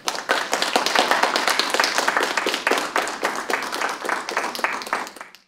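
Audience applauding, dense and steady, easing a little before cutting off abruptly near the end.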